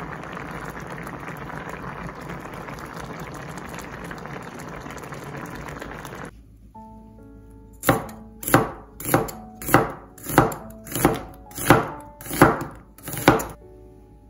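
A pot of Korean sausage stew (budae jjigae) bubbling at a steady boil, which cuts off about six seconds in. Then a metal cleaver chopping an onion on a bamboo cutting board: about nine even chops, roughly one every two-thirds of a second, over soft background music.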